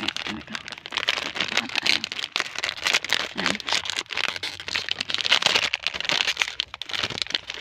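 Plastic wrapper of a watermelon ice pop crinkling and crackling as it is torn open and peeled off the bar.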